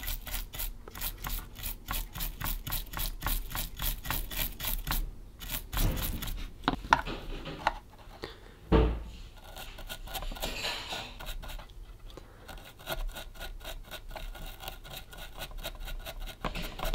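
A small brush scrubbing a circuit board wet with isopropyl alcohol, in quick back-and-forth strokes of about five a second. There is a short pause partway through and a single dull knock about nine seconds in.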